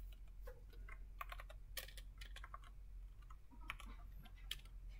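Computer keyboard being typed on: scattered key clicks, some in quick little runs, over a steady low hum.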